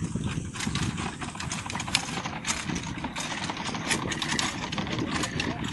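Horse trotting in harness while pulling a four-wheeled carriage over grass: the carriage wheels give a steady rumble, with many irregular rattling clicks from the carriage and harness.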